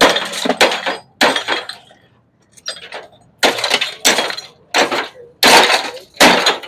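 Hammer blows breaking the glass of a CRT television's picture tube inside a metal tub, each strike followed by shards crashing and clinking. About nine blows, roughly one every half second, with a pause near the two-second mark.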